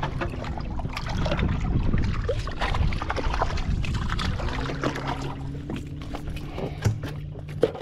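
Boat engine running under way, a steady low hum over a rushing noise; the hum stands out more clearly from about halfway through.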